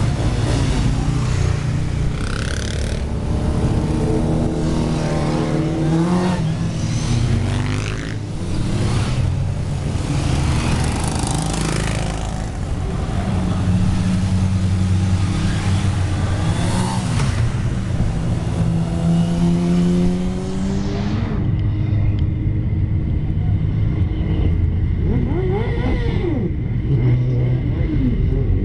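A column of motorcycles riding past one after another, their engines running and revving, with the pitch rising and falling as each bike goes by.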